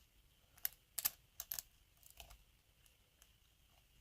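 Faint, irregular clicking of a lock pick working the pins of an Abus 83-series padlock under tension: a cluster of sharp ticks between about half a second and two and a half seconds in, then a lone one later.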